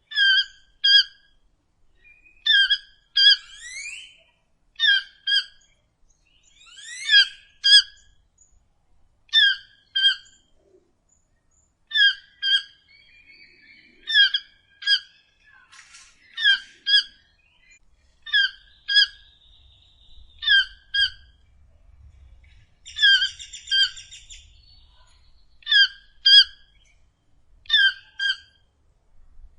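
Toucan calling: short pitched notes in pairs, about half a second apart, repeated roughly every two seconds. Fainter rising whistles and chirps from other birds sound between the pairs.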